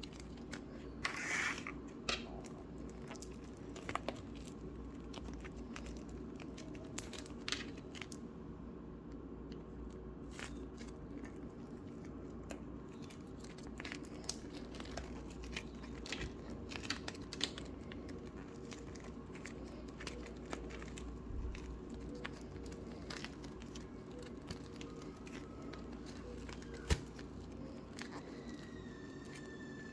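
Hands squishing and stretching Play-Doh feathery slime: scattered sharp crackles and clicks over a steady low hum.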